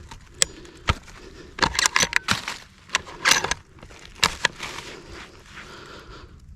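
A string of sharp metallic clicks and clacks over about four seconds, then quieter rustling: a bolt-action rifle's bolt being worked after a misfire, where the firing pin struck the primer but the cartridge did not go off.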